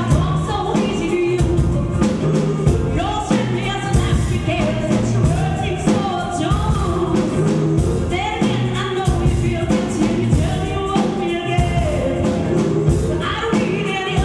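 A live band performing a song: a woman sings lead over a steady drum beat and a low bass line.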